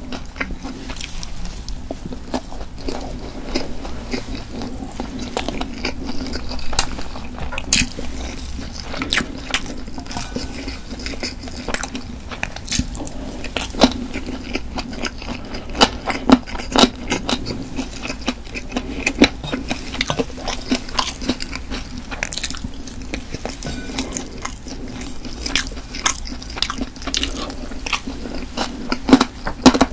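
Close-miked chewing of stir-fried pork cartilage, with frequent sharp, irregular crunches as the gristle is bitten through, over a faint steady low hum.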